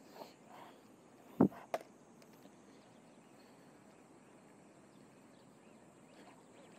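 Two sharp knocks about a third of a second apart, the first much louder, over a faint steady outdoor background with a thin high hiss.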